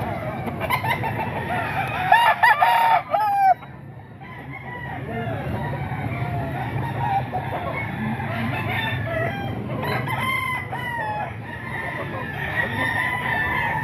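Gamecock roosters crowing and clucking, with one loud crow about two seconds in that breaks off abruptly, and more calls later.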